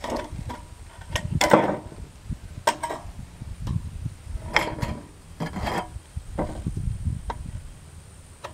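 Hand snips cutting a strip of painted sheet-metal roofing trim laid against a wooden board, the thin metal flexing and rattling; a string of irregular cuts and scrapes with short pauses between them.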